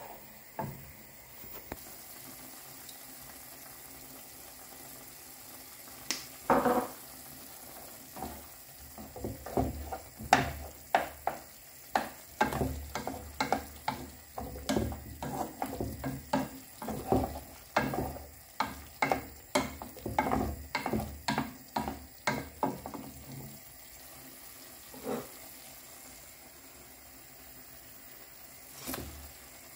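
A spatula stirring chicken and vegetables in sauce in a granite-coated frying pan, scraping and knocking against the pan in a quick run from about six seconds in until past twenty seconds. A steady sizzle continues underneath.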